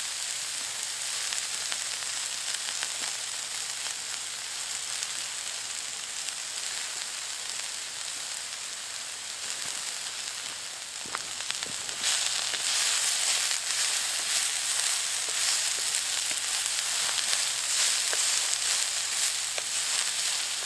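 Chicken, sliced peppers and onions sizzling on a hot oiled cooking stone, a steady frying hiss that gets louder about twelve seconds in.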